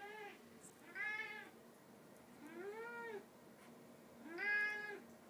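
Domestic cat meowing: four arching meows, the first brief and the others about a second and a half apart, the one near the end the loudest.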